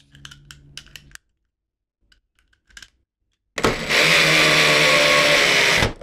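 Electric drill running steadily at one speed for about two seconds, starting a little past halfway, after a few faint clicks of handling.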